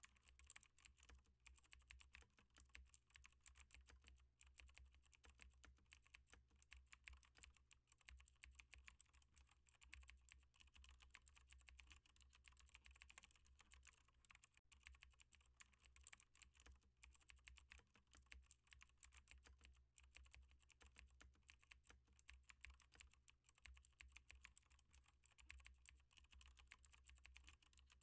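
Faint, continuous typing on a computer keyboard: a quick, uneven run of key clicks.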